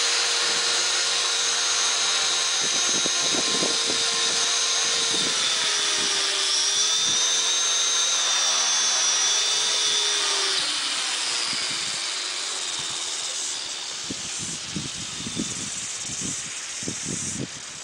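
Electric motor and main rotor of a flybarless Tarot RC helicopter running on a test stand, a steady high whine with a rotor swish. The pitch dips briefly about six seconds in, then the whine fades out about ten seconds in as the motor spools down, leaving irregular low rumbles near the end.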